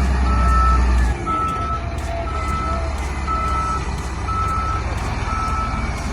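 Heavy-vehicle sound effect: a deep engine rumble under a reversing beeper beeping about once a second. The rumble is louder for the first second, then settles.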